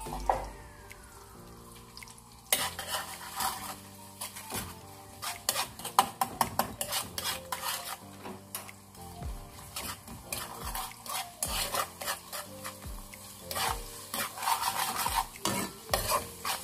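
A long-handled metal spoon stirs and scrapes around a wok in quick, irregular strokes, with oil sizzling underneath. A seasoning base of garlic-onion, stock cubes and terasi is frying in oil and butter. The stirring starts a couple of seconds in.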